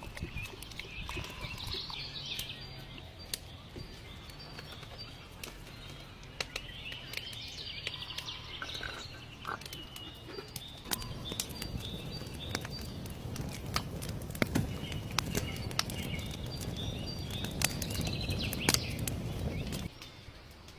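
Small birds chirping over and over, with scattered sharp clicks. A low rumble joins in the second half and cuts off suddenly near the end.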